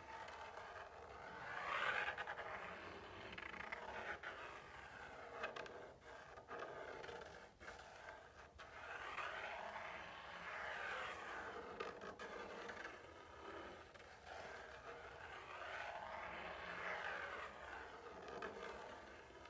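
Machinist pencil tracing along the edge of a guitar-body template onto wood: a faint scratching of lead on wood. It swells and fades in long strokes as the pencil goes round the outline, with a few light clicks.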